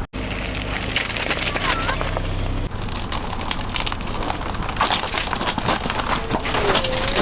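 Car tyre rolling over and crushing brittle objects: a dense run of cracking and snapping over the low, steady hum of the car's engine.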